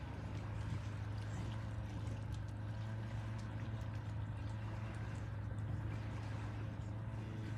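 Steady low engine hum under a light wash of noise, with a few faint ticks.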